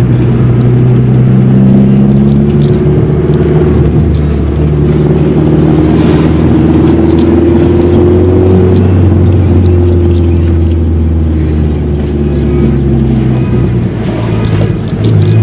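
Car engine running while driving, a steady low hum whose pitch shifts a few times.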